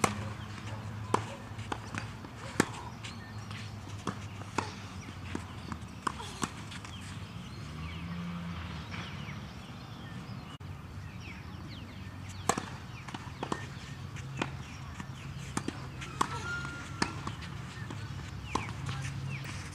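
Tennis racquets striking a ball in a serve and rally, with softer ball bounces between: a string of sharp pops every second or two. The first and loudest is the serve.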